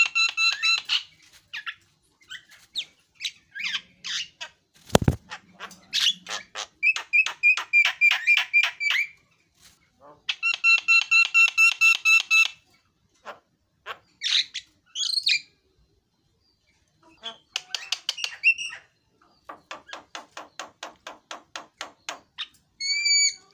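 Javan myna (jalak kebo) singing in varied bursts: fast rattling trains of notes, harsh stacked whistles and short squawks, with brief pauses between phrases. A single low thump about five seconds in.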